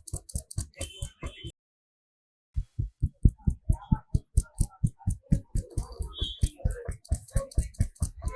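A barber's hands rapidly slapping and tapping a customer during a head massage, about four to five strokes a second. It breaks off for about a second, shortly after the start.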